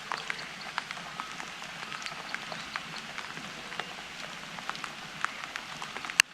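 Light rain and dripping on a river: scattered drops ticking over a steady hiss. One sharp, louder click comes near the end, and then the sound drops off abruptly.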